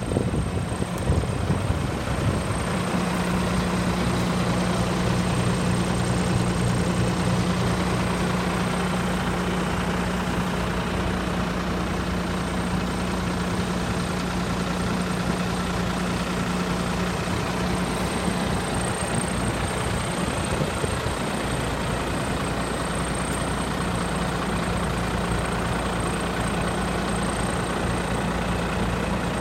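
Case A7000 sugarcane harvester's diesel engine idling steadily while the machine stands parked, a low even hum with a thin high-pitched whine over it.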